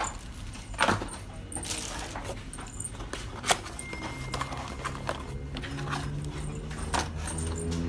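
Sharp clicks and rattling of handled equipment, with a brief thin beep-like tone. From about halfway through, a low steady hum comes in and grows louder toward the end.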